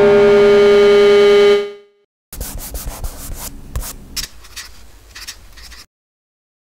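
A sustained synthesizer chord held and then fading out. After a short gap comes a run of scratchy, rubbing sound effects with sharp clicks and flicks, lasting about three and a half seconds before cutting off suddenly.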